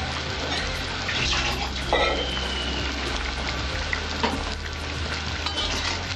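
Katla fish curry simmering and sizzling in a metal kadai over a gas flame, a steady hiss, with a few light clicks.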